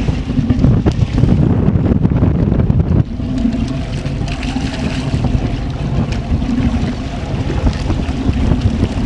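Wind buffeting the microphone over choppy sea, gusting hardest for the first three seconds, then settling to a steadier rush. A boat engine idles steadily underneath.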